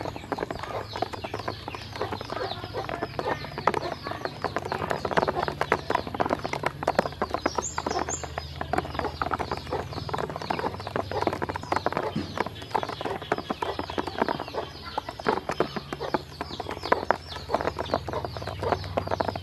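Ducklings pecking and dabbling in a plastic basin: a dense, rapid patter of bills tapping on the plastic as they eat feed and drink, with high, falling peeps throughout.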